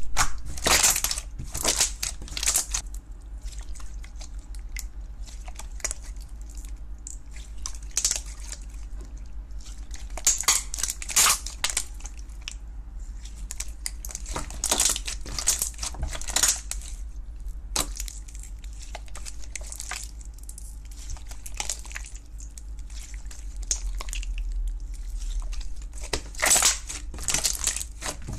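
Clear green slime squeezed and kneaded by hand, crackling and popping in irregular bursts.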